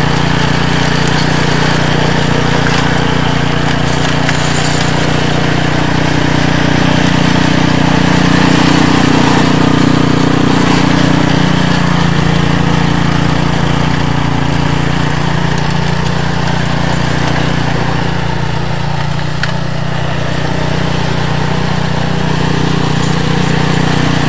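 REDVERG RD-SB60/950BS-E two-stage snowblower's engine running steadily under load as the machine clears snow and throws it from the chute.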